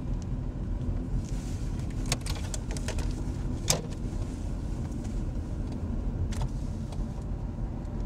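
Steady low rumble of a car's engine and tyres heard from inside the cabin while driving, with a few short, light clicks scattered through.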